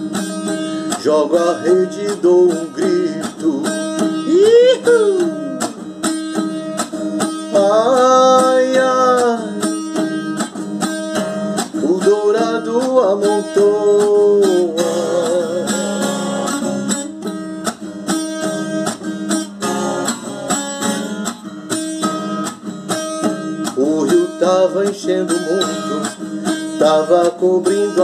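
A man singing to his own strummed acoustic guitar: steady strumming throughout, with sung phrases coming and going over it.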